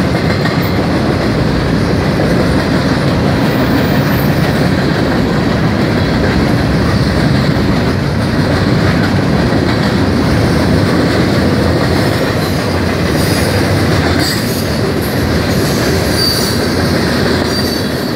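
Loaded freight cars of a fast freight train rolling past close by: a loud, steady rumble and clatter of steel wheels on the rails, with brief high-pitched wheel squeal in the second half.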